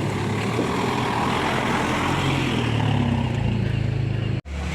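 Tour bus engine idling with a steady low hum and rushing noise. It cuts out for an instant near the end.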